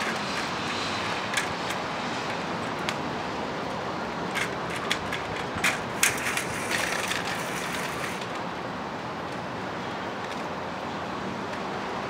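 Steady outdoor background hiss with a scatter of short, sharp clicks, most of them bunched together in the middle.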